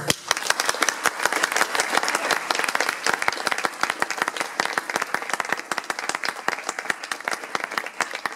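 Audience applauding, with one person's hand claps close to the microphone standing out from the rest.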